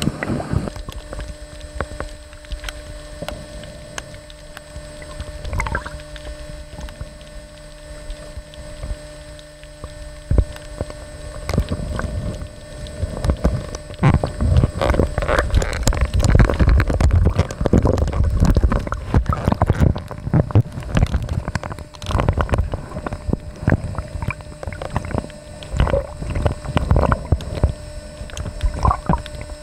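Sea water sloshing and bubbling as the camera moves at and under the surface, with many irregular knocks. It grows louder and busier in the middle of the stretch, over a faint steady hum.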